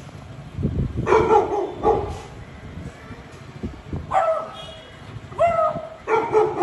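Beagle barking, about five short, yelping barks with pauses between them.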